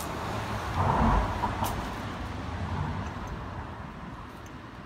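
A road vehicle passing in the street: a rumbling hiss that swells about a second in and then slowly fades away.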